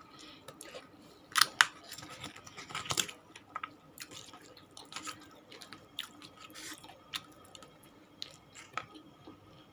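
Close-up mouth sounds of a person chewing food, with irregular wet clicks and smacks; the loudest come about one and a half and three seconds in.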